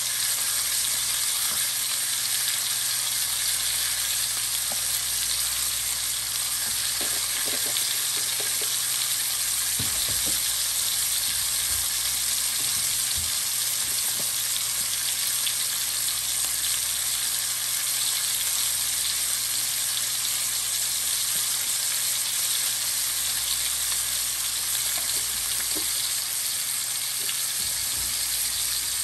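Two bone-in rib steaks sizzling steadily in hot oil in a nonstick frying pan, an even frying hiss.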